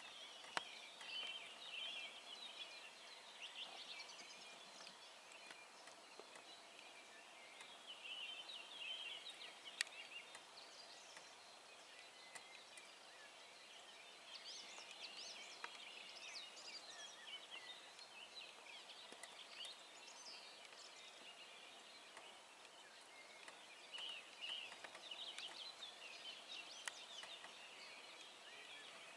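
Faint songbirds chirping and trilling in patches, the song coming and going every few seconds. A few sharp clicks stand out, the loudest about ten seconds in.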